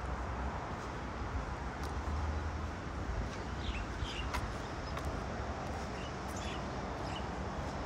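Steady rushing outdoor ambience, with a few short high chirps around the middle.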